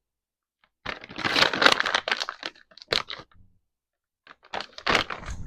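Canning salt being scooped from its container: a crunching rustle lasting about a second and a half, then a sharp click and a few lighter clicks near the end.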